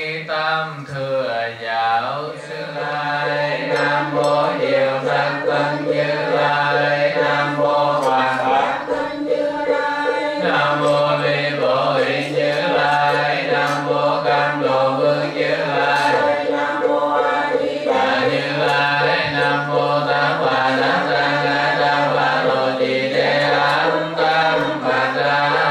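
A Buddhist monk chanting a Vietnamese offering liturgy for the spirits of the dead into a microphone: a slow, melodic sung chant held on long, wavering notes.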